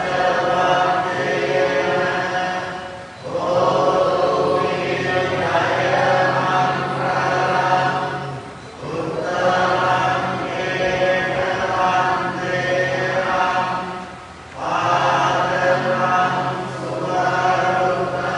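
Buddhist monks and devotees chanting together in long, steady phrases, with a short pause for breath about every five to six seconds.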